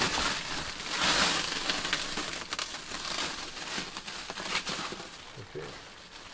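Plastic wrapping on a new mattress crinkling and rustling as the mattress is pulled and dragged, loudest about a second in.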